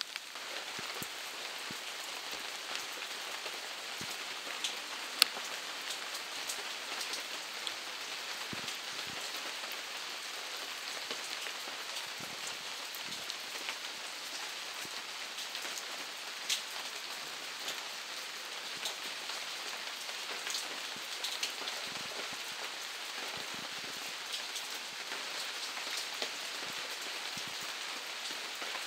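Steady rain falling, with many separate drops ticking close by over the hiss; one sharper tick stands out about five seconds in.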